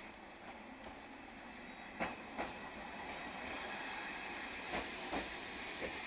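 SNCF Z 7300 electric multiple unit rolling past, its wheels clacking over rail joints in pairs, with a steady running rumble that grows louder a few seconds in.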